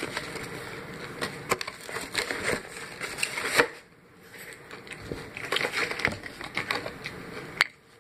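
Close crunching and crackling of extra-crispy fried chicken being bitten and chewed: irregular sharp crunches, with a short lull about four seconds in.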